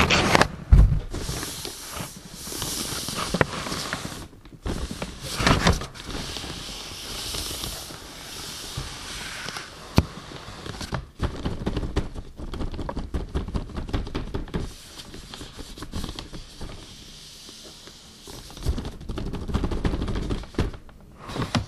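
Crumpled kraft packing paper and a plastic wrapper rustling and crinkling as hands dig through a cardboard box, in uneven bursts with crackly clicks.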